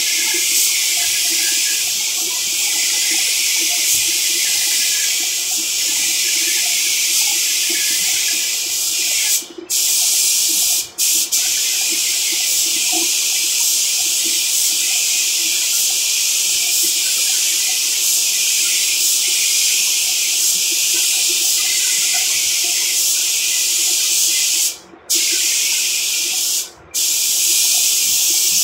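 Gravity-feed paint spray gun hissing steadily as compressed air atomises paint. The hiss cuts off sharply four brief times, as the trigger is let go between passes.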